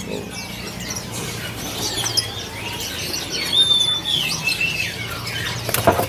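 Many caged songbirds chirping and whistling together, with one longer whistle a little past three and a half seconds in. Near the end a bird flutters its wings against its cage.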